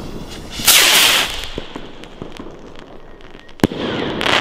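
Gold crackle-tail fireworks rockets going off: a loud hissing rush about a second in, scattered crackling pops, a single sharp bang past three and a half seconds, and another dense burst of crackling near the end.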